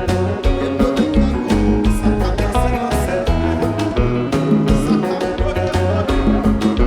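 Haitian live band playing: guitar and bass over a steady drum beat.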